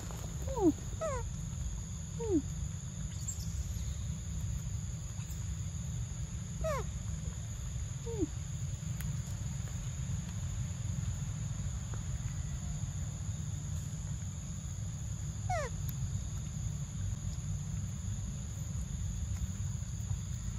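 Forest ambience: a steady high insect drone over a low rumble. Short downward-sliding animal calls sound a few times, in a cluster near the start, twice around 7 and 8 seconds in, and once more at about 15 seconds.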